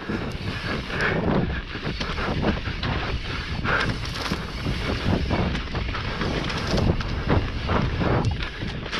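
Mountain bike descending a dirt singletrack at speed: heavy wind buffeting the microphone over the rumble of knobby tyres on dirt, with frequent short knocks and rattles from the bike's chain and frame over bumps.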